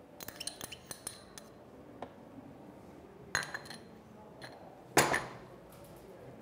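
A metal spoon clicks and scrapes against a small cup as softened butter is spooned into a blender jar. Then come clinks of spoon and cup against stacked ceramic bowls, the loudest clatter about five seconds in.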